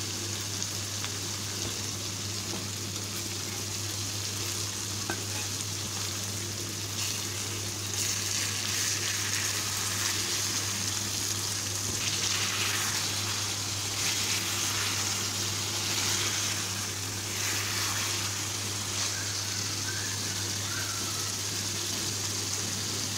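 Chicken pieces sizzling in oil and their own reduced juices in a frying pan, at the end of the bhuna frying-down stage when the liquid has cooked away. A spatula stirs and scrapes through the meat from about eight seconds in.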